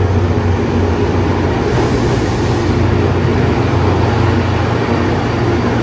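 A motor vehicle's engine running steadily: a loud, constant low drone with a steady mechanical hum above it and road or rail noise.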